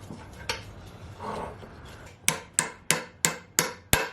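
Hammer striking metal in a steady series of sharp blows, about three a second, each with a short ring, starting a little past two seconds in: hammering on a driveshaft universal joint to seat its bearing caps in the yoke.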